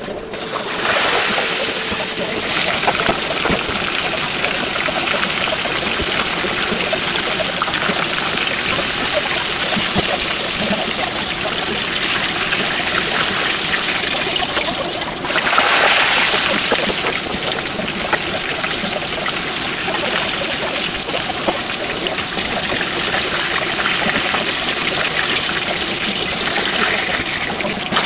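Hot oil in a pot deep-frying battered pieces of meat: a loud, steady sizzle and bubbling. It starts about a second in, dips for a moment about halfway and comes back louder.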